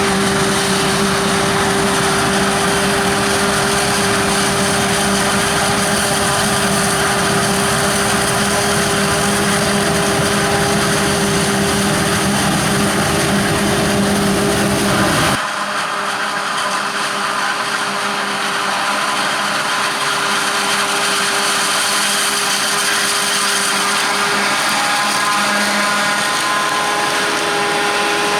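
Maize-harvesting machinery running loud and steady, with a constant mechanical whine over the noise. About halfway through, the low rumble cuts out abruptly while the whine continues, and more whining tones come in near the end.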